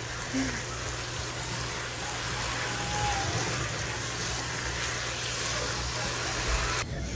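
Chopped meat, tomatoes, carrots and bell pepper sizzling steadily in a nonstick frying pan as they are stirred with a silicone spatula. The sizzle cuts off suddenly near the end.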